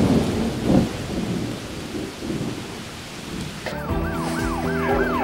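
A thunder crash rolling and fading over steady rain. About four seconds in, an emergency-vehicle siren starts in quick up-and-down yelp sweeps, about three a second.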